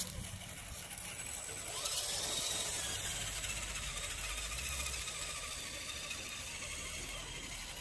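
Electric motors and geared drivetrains of radio-controlled scale crawler trucks whining as they climb a dirt trail, with a thin high steady tone above them, a little louder from about two seconds in.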